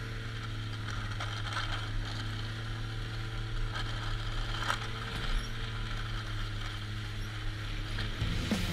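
Snowmobile engine running steadily while riding, heard from the rider's seat with wind on the microphone, and a few sharp clicks from the sled.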